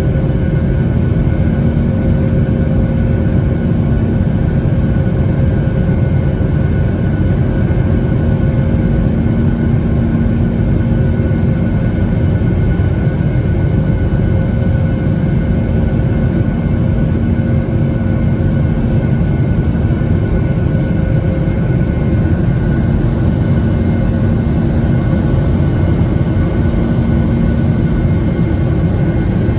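Steady engine and airflow noise inside a passenger airliner's cabin in flight, a constant roar with a faint steady hum on top.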